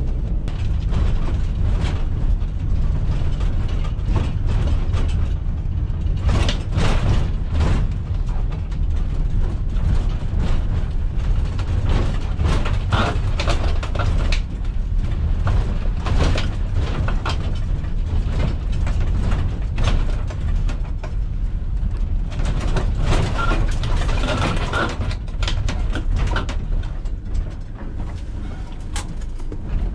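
Van driving on the road: a steady low rumble of engine and tyres, with frequent clicks and knocks from the loose load of scrap metal rattling in the back.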